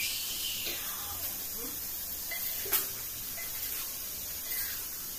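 Steady hiss of chicken cooking in an aluminium pot on a gas stove, with a sharp clink of a metal spoon against the pot about two and a half seconds in.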